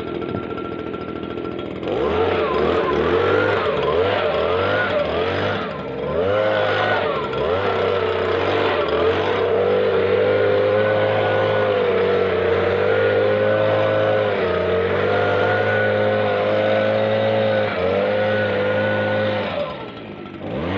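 Stihl BG56 leaf blower's two-stroke engine running: idling for about two seconds, then throttled up and down several times, held at high revs for about ten seconds, and dropping back briefly near the end before rising again.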